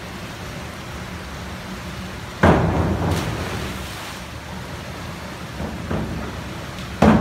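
A diver hitting the pool water: a sudden splash about two and a half seconds in that echoes off the indoor pool hall, and another just at the end, over the steady hum of the natatorium.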